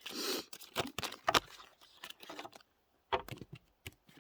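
Tarot cards being handled: a brief soft rustle, then a string of light, irregular clicks and taps.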